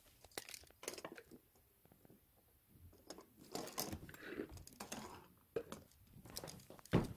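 Faint handling noise: rustling and crinkling with scattered clicks, a little louder in the middle, and a sharper knock near the end.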